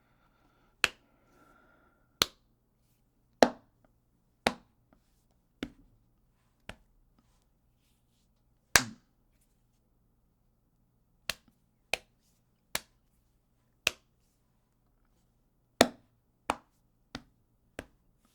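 Punches landing on a human body: about fifteen sharp, single smacking hits, spaced unevenly a second or so apart, some louder than others.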